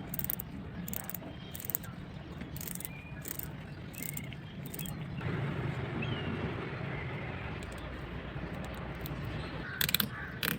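A run of short scraping strokes, roughly one or two a second, then a steadier hiss from about halfway through, with a few sharp clicks near the end.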